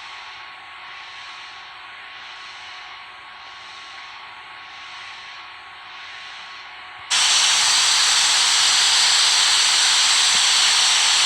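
A faint steady hiss, then about seven seconds in a much louder steady hiss cuts in abruptly and holds.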